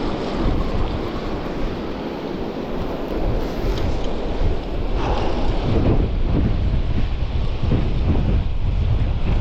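Strong wind buffeting the microphone over rough surf breaking on the beach.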